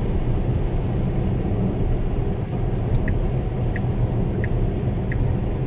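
Steady road and tyre noise inside the cabin of a Tesla Model S cruising at 100 km/h on wet asphalt, with no engine sound. About three seconds in, a faint regular ticking starts, about one tick every two-thirds of a second.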